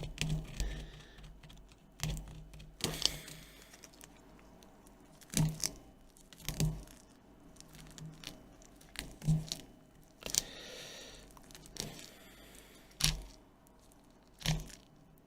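Old adhesive tape being peeled and torn off a tablet's plastic frame, in short separate pulls, each a brief sharp rip or crackle, about eight over the stretch.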